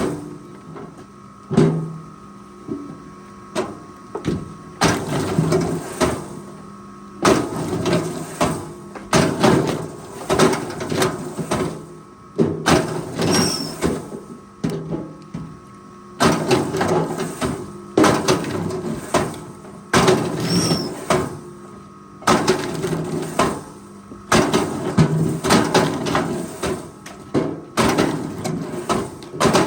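Forestry machine at work: a steady engine hum under a run of repeated clunking and scraping bursts, one every second or two.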